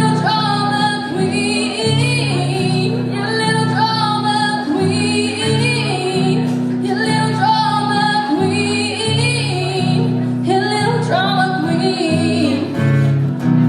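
A woman singing with instrumental accompaniment, long bending vocal lines held over steady low chords.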